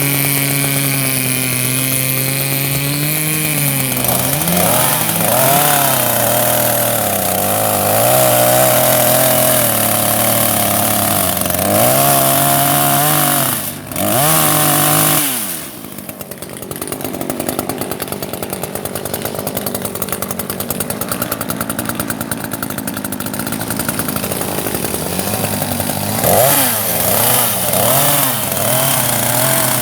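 Two-stroke chainsaw running at high revs and cutting into the wood of a dead ash, its pitch sagging and recovering repeatedly as the chain bites. About halfway through it drops to a lower, rougher running, then picks up again near the end.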